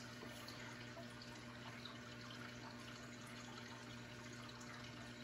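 Faint steady room noise: an even hiss with a low steady hum and no distinct event.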